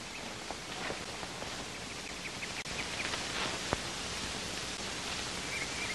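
Steady hiss of outdoor background ambience on an old television soundtrack, with a few faint high chirps and one short click.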